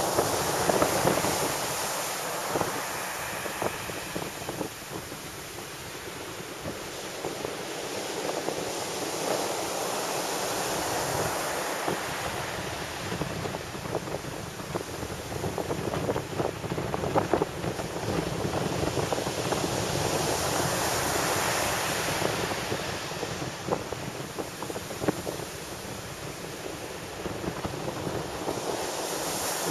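Heavy surf breaking on a sandy beach: a continuous wash of crashing waves and foam running up the shore, rising and falling every few seconds as each wave breaks.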